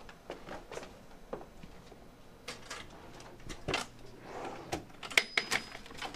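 Rummaging in a desk drawer: scattered clicks and knocks of things being moved about, busier and louder in the last two seconds.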